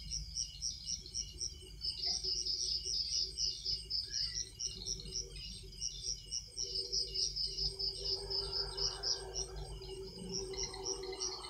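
Night-time crickets chirping steadily in fast, high pulses, several a second. A fainter low steady drone joins about halfway through.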